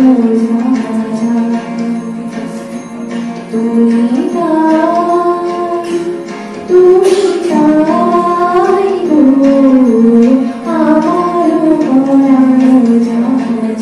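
A woman singing a slow melody into a microphone, with long held notes that slide between pitches. She pauses briefly about halfway through, then comes back in louder.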